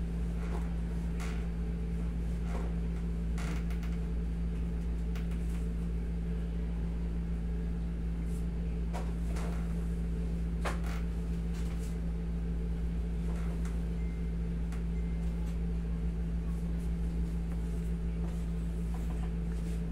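Steady low mechanical hum in a small room, with occasional faint creaks and short rubbing clicks from the knee massage on the treatment table.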